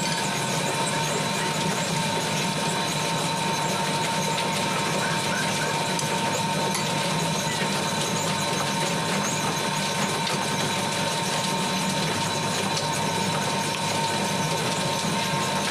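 Steady mechanical drone of a running engine or motor, unchanging throughout, with a low hum and a few thin steady whining tones over it.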